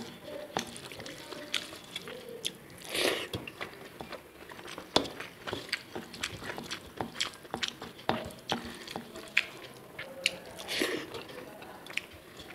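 Close-miked hand-eating sounds: fingers mixing rice on a steel plate, and chewing with many small wet clicks and smacks. Two longer rustling rushes come about three seconds in and again near eleven seconds.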